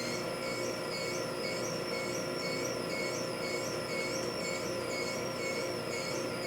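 Greenstar twin-gear juicer running: a steady motor hum with a high squealing whine from the turning gears that rises and falls in a regular rhythm, a few times a second.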